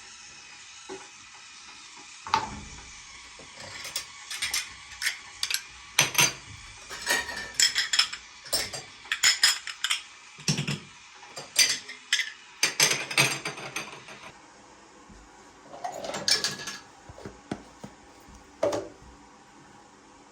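Dishes and metal utensils being handled: a long, irregular run of sharp clinks and knocks, some ringing briefly.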